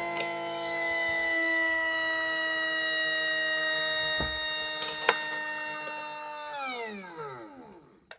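Electric motor of an RC scale boat running at speed with a steady, high whine, then spinning down near the end, its pitch falling away until it stops.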